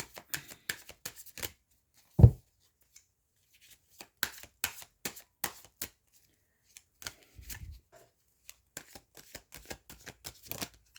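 Tarot cards being shuffled by hand: a loose, irregular run of quick card flicks and snaps, with one dull thump about two seconds in.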